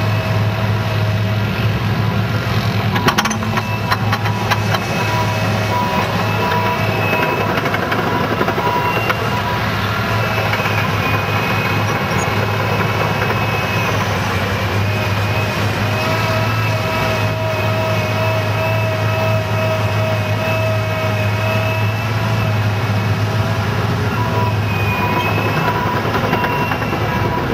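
Cat 963C tracked loader's diesel engine running steadily under load as it pushes its bucket into a pile of topsoil, with high squealing tones that waver in pitch. A few metallic clanks about three to four seconds in.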